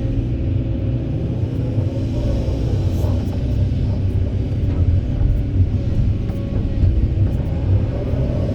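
Kobelco SK200 excavator's diesel engine running with a steady low rumble under working load. A whine rises and falls as the hydraulics work, a couple of seconds in and again near the end.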